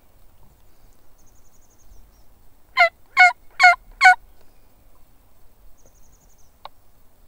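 Turkey call blown by mouth, with the hand cupped to project it: four loud yelping notes in a quick series, about half a second apart, starting near the three-second mark. It is sent out to strike up a gobbler and get it to answer.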